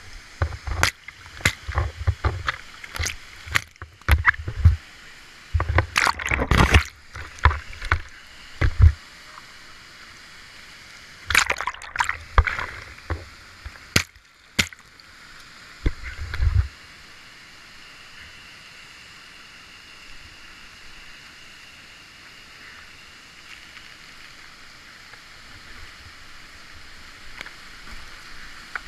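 Water splashing and sloshing against a kayak and its boat-mounted camera in sharp, irregular bursts, splashed on to rinse the lens. Then a steady rush of whitewater rapids that grows a little louder near the end as the kayak heads into it.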